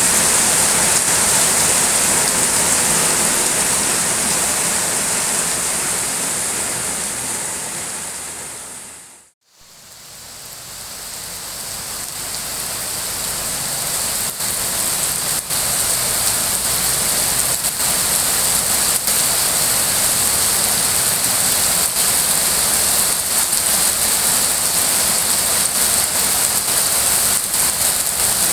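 Steady heavy rain falling, a dense even hiss. About a third of the way through it fades away almost to nothing and swells back over a few seconds, with occasional faint ticks of drops in the later part.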